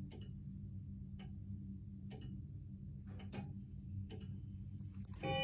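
Howard Miller weight-driven grandfather clock ticking steadily, about one tick a second. Near the end its quarter-hour chime begins to ring, set off by slowly turning the hands.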